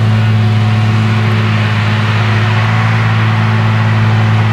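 Claas Jaguar 970 forage harvester running steadily under load while chopping whole-crop triticale, a constant low hum under a busy mechanical rush, with the tractor pulling the trailer alongside adding to it.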